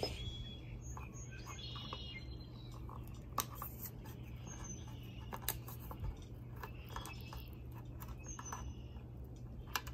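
Homemade Swiss-army-style lever can opener on a multitool working around a can lid, with scattered sharp clicks as the blade punches and levers through the tin, a second or more apart, over a steady low hum.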